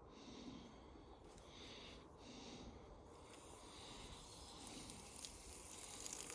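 Near silence, with only a faint hiss that comes and goes.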